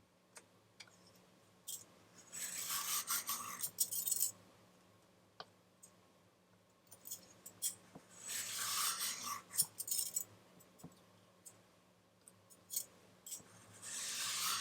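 Three slow scraping strokes of a kitchen utensil on food, each lasting about two seconds, with light taps and clicks in between.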